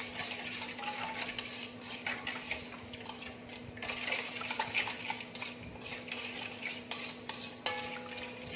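Metal spoon stirring a wet mix of sauce, sugar and sesame seeds in a large stainless steel mixing bowl, scraping and clinking against the sides. Near the end the spoon knocks the bowl sharply and the bowl rings on briefly.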